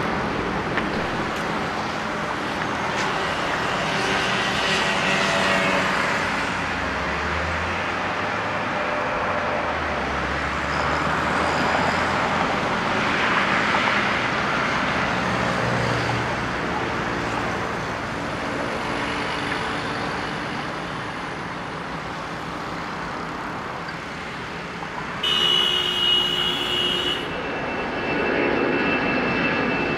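Boeing 747-400's four jet engines at takeoff thrust, a steady jet noise as the airliner rolls, lifts off and climbs out, growing louder near the end as it comes overhead. A brief high-pitched tone cuts in about three-quarters of the way through.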